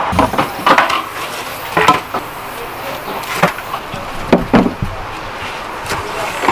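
A series of irregular knocks and clatter, like objects being handled and set down, over a low background noise.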